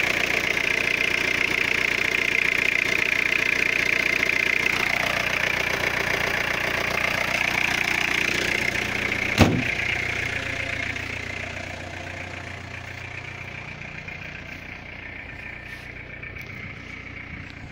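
Peugeot 106 1.4 diesel's four-cylinder engine idling with a steady diesel clatter, loud under the open bonnet. About halfway through there is a single sharp bang, and after it the idle is heard more quietly.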